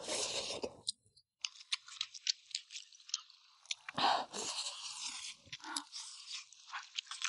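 A person chewing a mouthful of pickled-cabbage fish, with many small, quick mouth clicks and crunches and a louder noisy smack about four seconds in.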